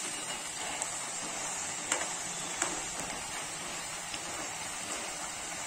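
Batter-coated potato fingers sizzling steadily as they deep-fry in very hot oil in a kadhai, stirred with a perforated skimmer: the high-heat second fry (flash fry) that makes them crisp. Two light clicks come about two seconds in.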